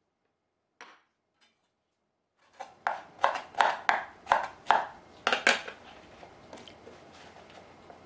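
Kitchen clatter: a quick run of about eight sharp knocks and clinks from utensils or a knife on a board, a few seconds in, then soft handling noise.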